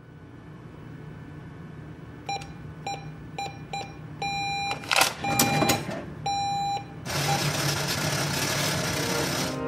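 Electronic cash register keypad beeps over a low steady drone: four quick beeps, then several longer ones, with a sharp click about five seconds in. About seven seconds in a loud, steady rushing noise takes over.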